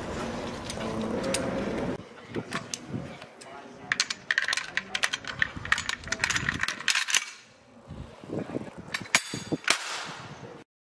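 Metal clicks and clacks of machine-gun parts (bolt, operating rod, receiver and feed cover) being handled and fitted together. A dense run of quick clicks comes in the middle, and the sound cuts off just before the end.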